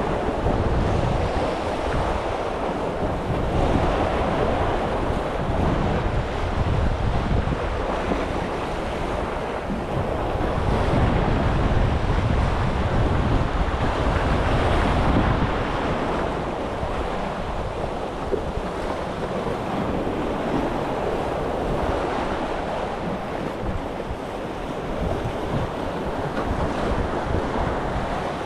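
Sea waves washing against a breakwater of concrete blocks, with wind buffeting the microphone; the rush swells and eases slowly.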